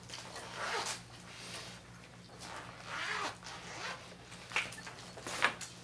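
Close rustling and brushing noises in several short bursts, with a steady low electrical hum underneath.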